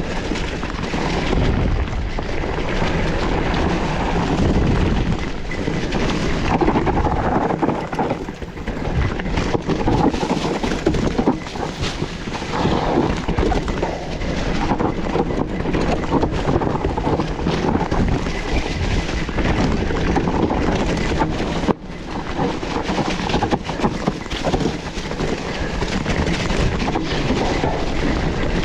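A waterfall rushing steadily, a dense continuous noise of falling water, dropping out for a split second about 22 seconds in.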